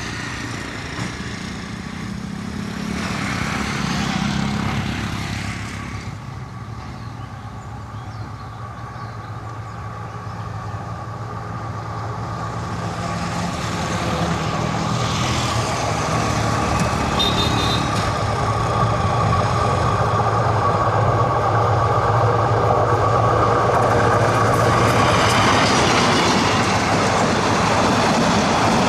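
Diesel-hauled intercity express train approaching and passing: the locomotive's engine drones low and grows steadily louder, then the coaches run close by with a loud rumbling of wheels on the rails near the end.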